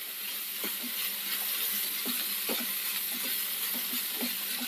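A spatula stirring a jackfruit-seed stir-fry in a frying pan, with a steady sizzle under light scrapes and taps of the spatula against the pan.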